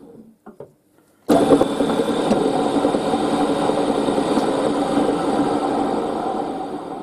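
Small milling machine's spindle motor running steadily with a tap in the chuck. It dies away at the start and, after about a second of quiet, starts again abruptly at full level.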